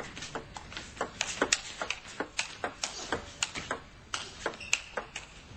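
Table tennis rally: the celluloid ball clicking sharply off the table and the rackets in quick alternation, about three hits a second.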